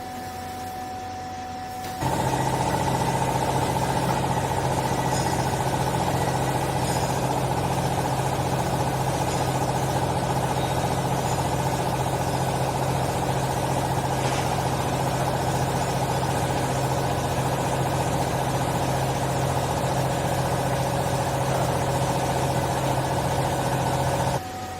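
Hydraulic baler's power unit running: a steady mechanical hum with a low drone. It starts abruptly about two seconds in and cuts off abruptly shortly before the end.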